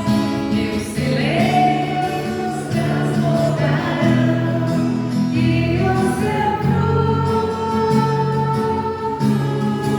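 Worship singing: a group of voices singing a gospel song together over a steady musical accompaniment.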